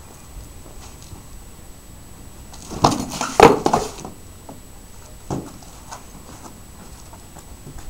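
Training swords and round shields clashing in a rapid cluster of sharp knocks lasting about a second, about three seconds in, followed by a couple of lighter single knocks.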